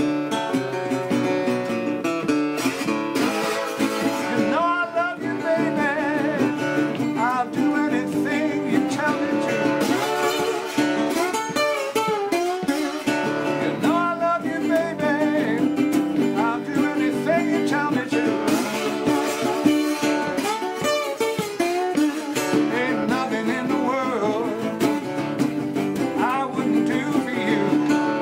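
Steel-bodied, single-cone Duolian-style resonator guitar being played, with its bright, metallic tone, and a man singing along over it.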